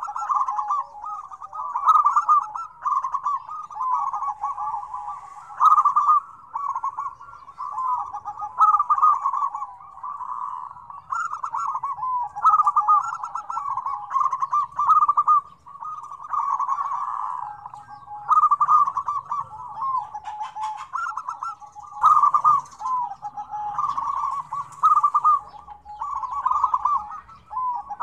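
Several zebra doves (perkutut) cooing together, their rapid trilling coo phrases repeating every second or two and overlapping into an almost unbroken chorus, with faint high chirps above them.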